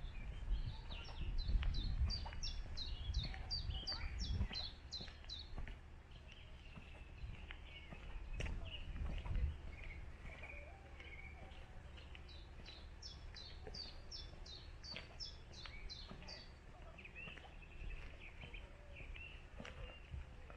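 A songbird singing two phrases, each a quick run of a dozen or so sharply falling high notes at about three a second, the first about a second in and the second around twelve seconds in. Low thuds of footsteps on the walk come underneath in the first few seconds.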